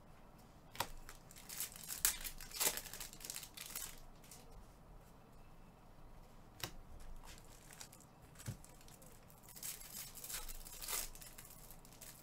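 Trading card pack wrappers being torn open and crinkled, in scattered crackling bursts with a few sharp clicks, busiest about two seconds in and again near the end.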